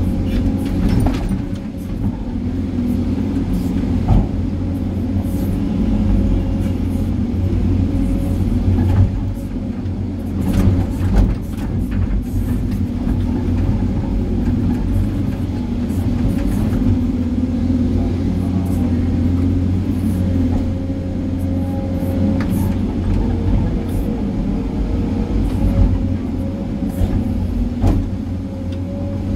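SANY excavator's diesel engine running steadily under digging load, heard from inside the cab, with a few sharp knocks as the bucket works through soil and rock.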